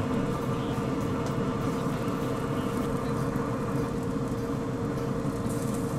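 Steady mechanical hum with a constant pitched tone, from the running fan of a Pit Boss Pro Series 1600 Elite pellet grill.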